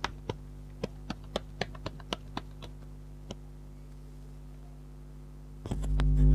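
Tarot cards handled and shuffled by hand: a quick run of sharp card taps and clicks that thins out after about two and a half seconds. A louder low sound comes in near the end.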